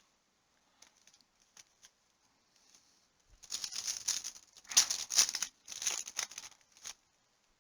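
Cellophane wrapper of a trading-card pack crinkling and tearing as it is opened, in three loud bursts in the second half after a few faint clicks.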